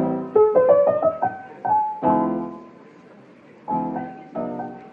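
Background piano music: a short run of single notes, then chords struck and left to ring out, with a near-quiet gap of about a second before two more chords near the end.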